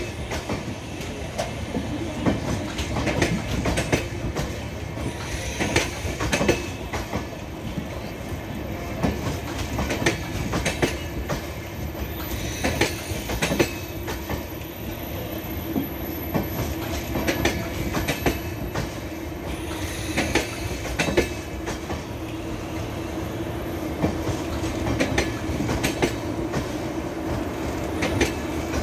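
LHB passenger coaches rolling past close by: a steady rumble of wheels on rail, with clusters of clicks each time a bogie's wheels cross a rail joint, recurring every few seconds.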